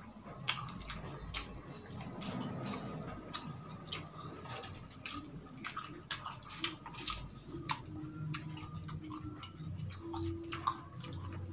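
Small sounds of eating: many scattered sharp clicks and taps as a spoon scoops sauce from a small glass bowl and food is handled over a metal tray, along with chewing of crispy fried street food.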